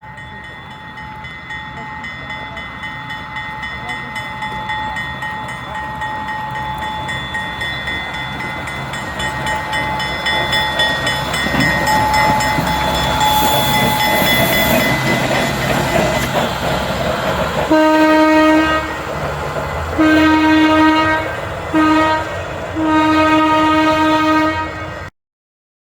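A narrow-gauge train drawing closer and growing louder, then sounding four blasts on its horn or whistle, long, long, short, long: the grade-crossing signal. The sound cuts off suddenly near the end.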